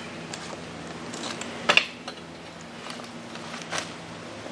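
A few light metal clicks and clanks from a Lone Wolf hand climber treestand's aluminium base as it is handled and set against a tree trunk. The sharpest comes a little under two seconds in and another near the end.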